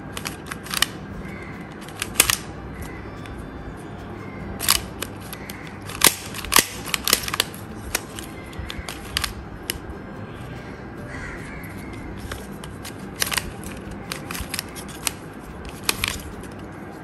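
Plastic twisty puzzle (banana cube) being turned by hand: irregular sharp clicks as its layers snap round, some in quick clusters with short gaps between.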